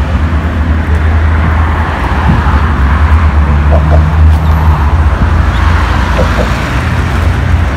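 Road traffic passing on a busy city street: a loud, steady low rumble under a general street noise, with a low hum for about a second midway through.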